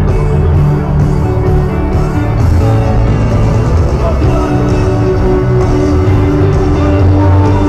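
Live worship band music played loudly over a stadium PA, with sustained chords over a heavy, steady bass, heard from within the crowd.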